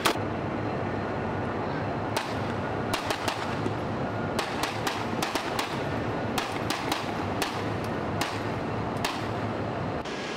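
A line of shooters firing pistols: a dozen or so sharp shots that come singly and in quick clusters at uneven intervals, over a steady rush of wind on the microphone.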